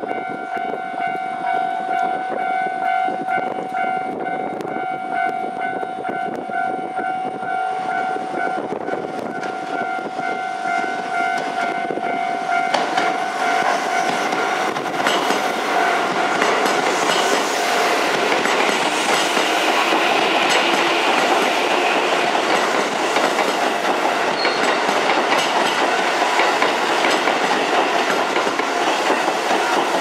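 A level-crossing warning bell rings a steady, repeating electronic tone. From about halfway a Keisei commuter train runs in close by and grows louder, its wheels clattering over the rail joints and covering the bell.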